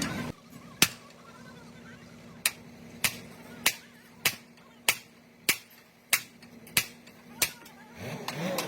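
Repeated sharp hammer strikes on metal, about ten blows evenly spaced a little over half a second apart, each with a short ring.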